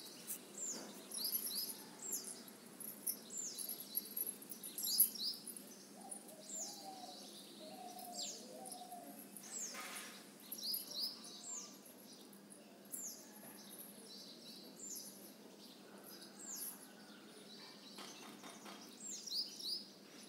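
Small birds chirping: short, high calls that sweep downward, coming in twos and threes about once a second, over a faint hiss.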